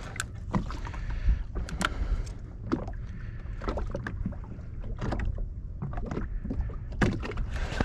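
Small waves lapping and slapping against the hull of a drifting Sea-Doo Fish Pro jet ski, irregular sharp slaps over a low wind rumble on the microphone.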